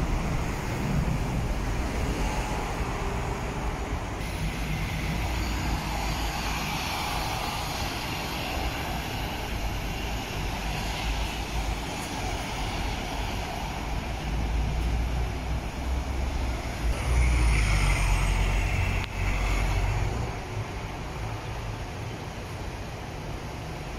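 Road traffic: city buses and cars passing on a multi-lane road, with diesel bus engines and tyre noise. It swells louder for a few seconds about three-quarters of the way through as a vehicle goes by.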